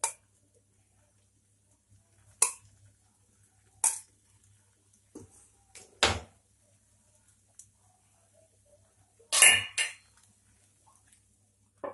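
Steel spoon clinking against a steel bowl: a handful of separate sharp knocks a second or two apart, with a louder double clink about nine and a half seconds in.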